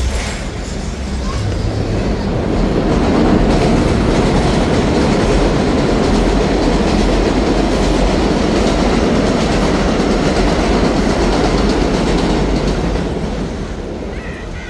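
An elevated subway train passing on the steel el structure above Roosevelt Avenue, the 7 line. Its loud noise builds over the first couple of seconds, holds for most of the stretch, and fades away near the end.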